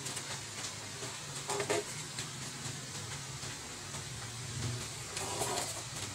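Steady low hum and hiss of room tone, with two faint brief handling sounds about one and a half and five and a half seconds in as a mixing console is turned over in the hands.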